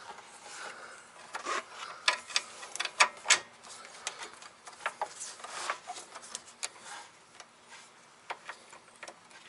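Irregular small metallic clicks and taps with some rubbing as a bolt is fitted by hand into the VW Mk2 rear beam's mounting bracket, in an awkward, tight spot. The clicks come thickest and loudest about two to three and a half seconds in.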